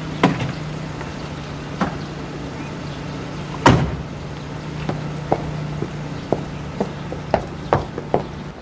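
Citroën taxi's engine running with a low steady hum; a car door is shut with a bang about three and a half seconds in, the loudest sound. Then footsteps walk away at an even pace, about two steps a second.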